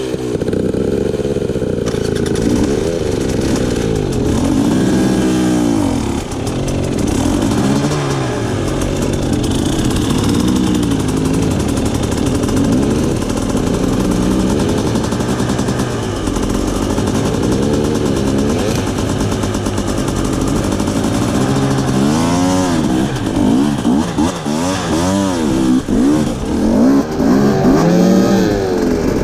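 Off-road dirt bike engine revving up and down again and again as it is ridden over rocks, the throttle opened and closed in short bursts, with quicker and larger revs in the last several seconds.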